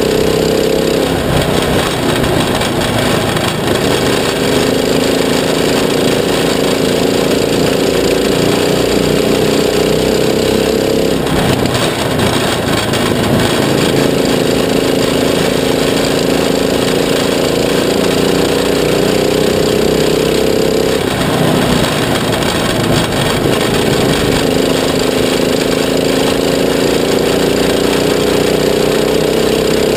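Stoxkart engine racing at high revs, heard from inside the cockpit. Its pitch climbs steadily, then drops briefly about every ten seconds as the throttle comes off and back on again.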